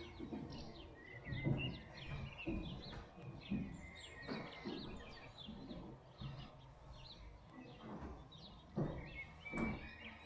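Small birds chirping and twittering, many short calls one after another, with a few low thumps mixed in, the strongest about four and nine seconds in.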